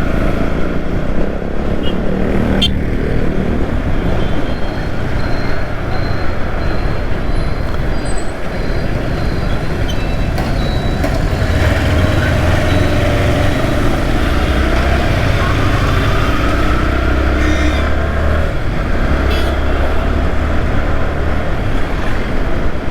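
Yamaha R15 V3's single-cylinder engine running under way at road speed, heard from a helmet-mounted camera with steady wind rush over it; the engine note rises and falls a few times around the middle, amid passing road traffic.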